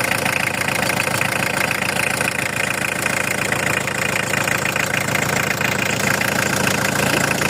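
Volkswagen van engine idling steadily, run on a 15-minute test after a new coolant expansion tank was fitted, to see whether the coolant leak is cured.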